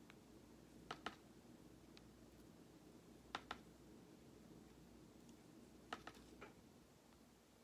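Faint light taps of a paintbrush's handle end dabbing paint dots onto a rock, in quick pairs about every two and a half seconds, over quiet room tone.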